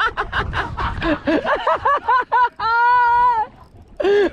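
Men's voices: rapid chatter and laughter, then a long drawn-out call held on one pitch for about a second, near the end.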